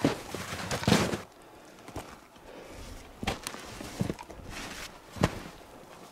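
Footsteps crunching in snow over rock: two heavy crunching steps in the first second, then four short sharp knocks spaced about a second apart.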